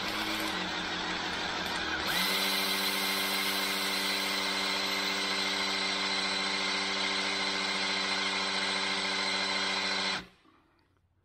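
Electric drill spinning the oil pump of a Chevy 350 small-block through a priming tool, running steadily under load as it pushes oil up to the lifters and pushrods at about 65 psi. Its pitch rises and steadies about two seconds in, and it stops about ten seconds in.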